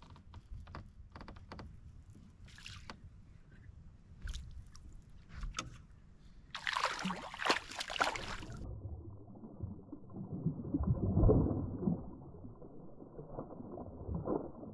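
A hooked bass splashing and thrashing at the water's surface beside a boat, after a few seconds of scattered clicks and knocks. About two seconds later the splash comes again as a slowed-down, muffled, deeper sound that is loudest near the middle of that stretch.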